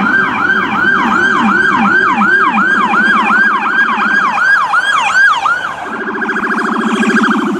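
Electronic emergency-vehicle siren sounding two tones at once: a higher tone sweeping down again and again, about two to three times a second, over a lower tone. The lower tone switches to a fast warble a couple of seconds in, and the higher tone does the same near the end.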